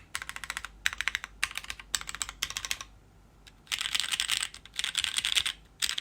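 Typing on a Garderie TKL custom mechanical keyboard with MX Black linear switches, a full aluminium plate in an O-ring mount, and DCS keycaps. The first half is quick bursts of keystrokes; after a pause about halfway comes denser, near-continuous clacking.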